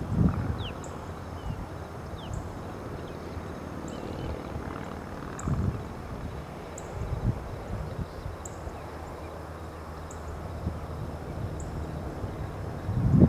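Outdoor background: a steady low rumble, with a faint high tick repeating about once a second and a couple of low thumps in the middle.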